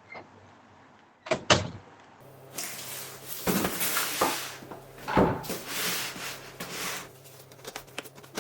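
A door shutting, heard as two sharp knocks close together. Then a stretch of irregular rustling and knocking, as of something being handled, over a low steady hum.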